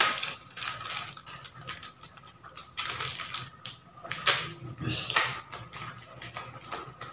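Crinkling and rustling of a plastic sachet and a foil-wrapped packet being handled and unwrapped by hand, in irregular crackles.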